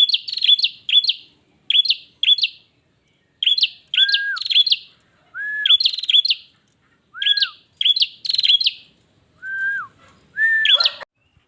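Prenjak (prinia) calling loudly: quick runs of short, sharp chirps, joined from about four seconds in by five longer, lower notes that each drop at the end.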